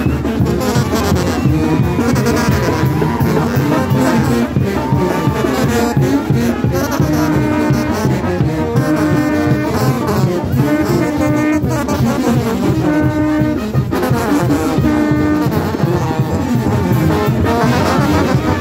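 Loud Mexican brass banda playing: sousaphones, trombones and trumpets over a bass drum, with held brass notes over a steady beat.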